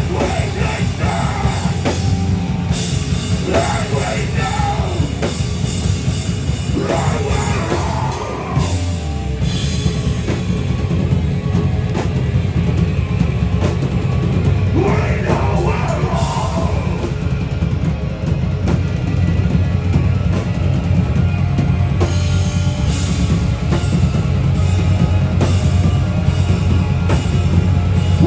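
Live heavy metal band playing loudly, drum kit driving throughout, with vocals over the first several seconds and again briefly past the middle.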